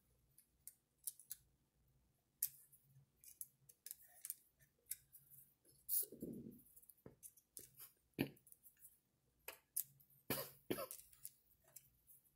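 Faint, scattered light clicks and taps of a small hand driver and small plastic and metal parts being handled while a screw is worked on an RC truck's front suspension, with one short, duller sound about six seconds in.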